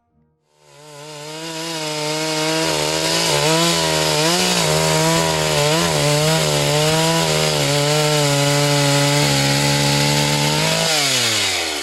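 A small motor-driven power tool running at high speed, its pitch wavering as it is loaded, then winding down near the end as it is switched off.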